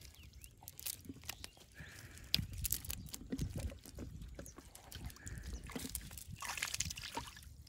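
Hands working fish out of a wet cast net on mud: the net mesh rustling with scattered small clicks and soft wet slaps, irregular throughout, with a denser rustle near the end.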